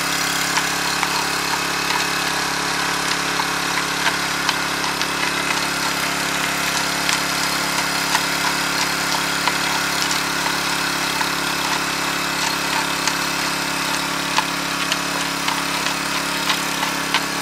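Small gasoline engine of a backpack water pump running steadily, forcing a water jet through a wand into the creek-bed gravel, with water churning and scattered sharp clicks. This is the gravel blow-out used to plant salmon eggs in the streambed.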